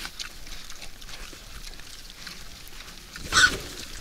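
Wild boars feeding, with a steady scatter of small crunching, chewing clicks. About three seconds in, one boar gives a short, loud call.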